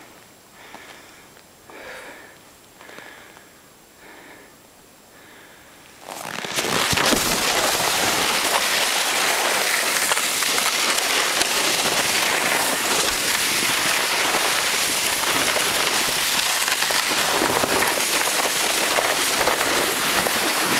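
Sled sliding fast down a snow run: after a quieter start, a loud, steady, crackling scrape of the sled's base over the snow begins about six seconds in and keeps on.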